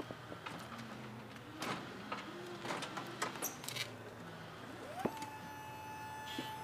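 Hyster electric walk-behind pallet jack moving a loaded pallet: light clicks and rattles, then about five seconds in its drive motor whines up and holds a steady high pitch.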